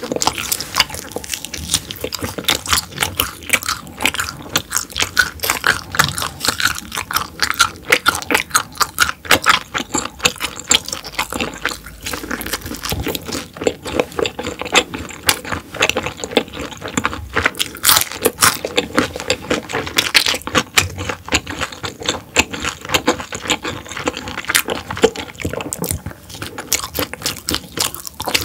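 Close-miked mouth sounds of eating gwamegi (half-dried herring) wrapped with raw vegetables: continuous chewing with a dense run of crisp, wet clicks.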